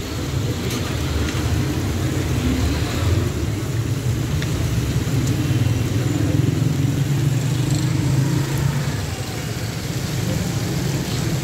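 Fish frying in oil in a large, wide street-stall pan, an even sizzle over a steady low rumble, with a few light clicks of metal spatulas against the pan.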